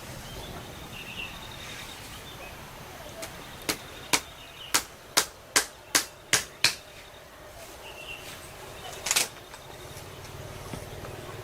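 A run of about eight sharp knocks, roughly two a second, then a single knock a few seconds later, over a steady outdoor background.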